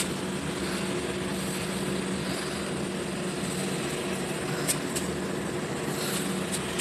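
A steady mechanical hum with a constant low drone, like a motor or engine running; a couple of faint clicks come about two-thirds of the way through.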